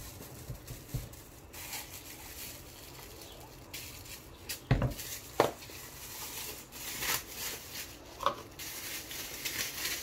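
Wooden spoon scraping and knocking against an aluminium pot of soft mashed rice, with two sharp knocks about halfway through. Soft rustling and handling sounds follow as the sticky rice is worked by hand.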